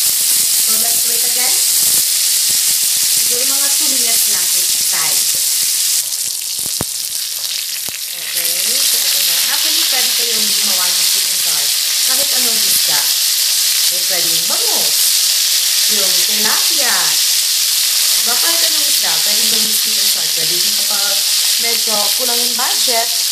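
Blue marlin steaks frying in hot oil in an aluminium wok: a steady, loud sizzle that eases off for a couple of seconds about six seconds in, while tongs turn the fish now and then.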